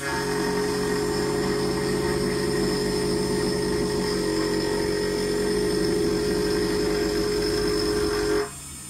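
A 6040 CNC router's spindle and end mill cutting into a square steel bar: a steady tone with a rough, rattling edge from the cut. It stops abruptly near the end.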